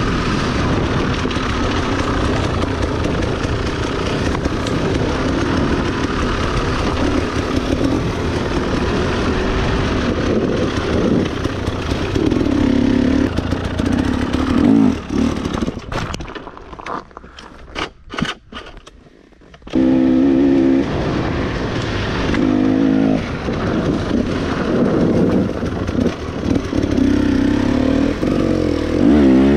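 Dirt bike engine running and revving as it is ridden, the pitch rising and falling with the throttle. About two-thirds of the way through the sound drops off for about three seconds, leaving a few faint knocks, then the engine sound comes back suddenly.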